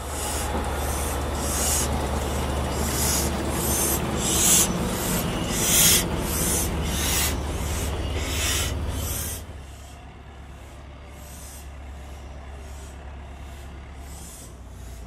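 Narrow-gauge steam locomotive chuffing slowly, its exhaust beats coming about twice a second over a low rumble. The sound drops to a softer level about nine and a half seconds in, with the beats still going.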